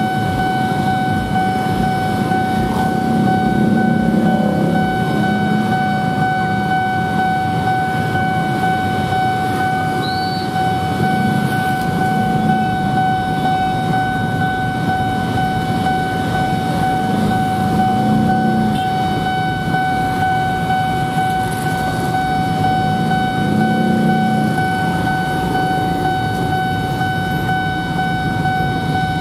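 Railway level-crossing warning signal sounding one unbroken steady tone, over the running engines of a crowd of motorcycles and a minibus waiting at the crossing and moving off.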